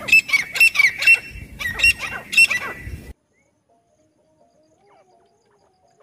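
Grey francolins calling: two runs of loud, shrill, repeated notes, about three strong notes in each, then the sound cuts off abruptly about halfway through.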